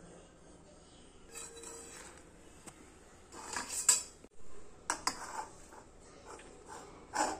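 A metal kitchen utensil clinking and scraping against a steel tawa and plate as a naan is handled. The clatters come in short bunches, loudest about four seconds in and again near the end.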